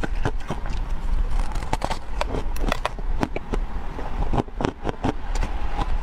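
Close-miked chewing of a crunchy, crumbly food: a quick, uneven run of crisp crunches, several a second.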